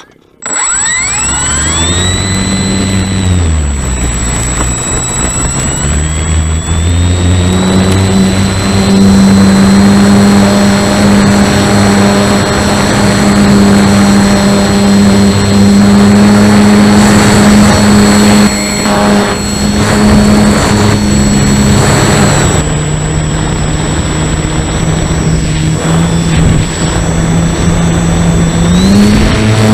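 Electric motor and propeller of a Parkzone S.E.5a RC biplane heard from a camera on board: it spools up quickly about half a second in, dips and climbs again in the first few seconds as the throttle changes, holds a steady high pitch, drops lower about two-thirds of the way through and rises again near the end. Wind rushes over the microphone throughout.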